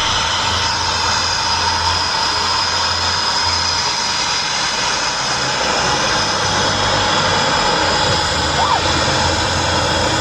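Jet aircraft engine running, a steady loud rush with a thin high whine over it.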